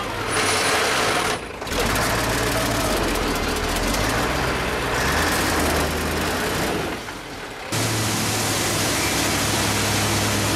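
Dump truck's diesel engine running steadily, with a broad rushing noise over it; the sound changes abruptly twice.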